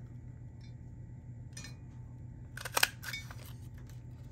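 A handheld paper craft punch clacking shut: one sharp cluster of mechanical clicks just under three seconds in, with a few faint taps of paper and tools being handled around it.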